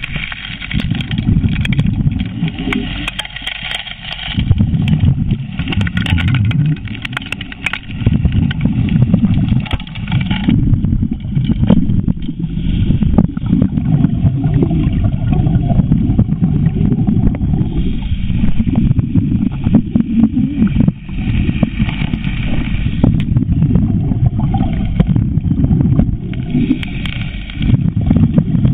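Suction gold dredge working, heard underwater: a steady low rumble with many short clicks running through it.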